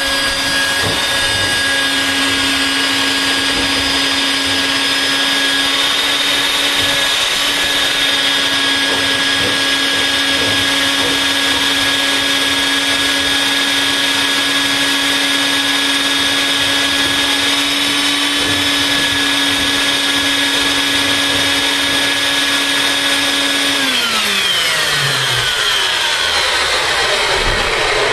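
Vacuum cleaner running steadily with a high motor whine over rushing air as it cleans a refrigerator's condenser coil, then switched off near the end, its pitch falling as the motor spins down.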